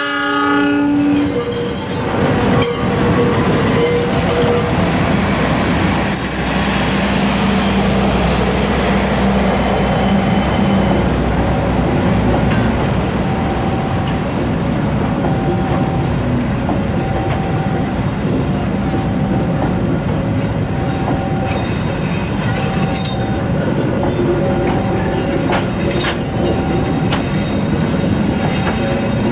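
Diesel-hauled passenger train of K3 Premium economy coaches passing close by: the locomotive's horn ends about a second in, then the engine and the coaches' wheels rumble and squeal over the rails as the train streams past.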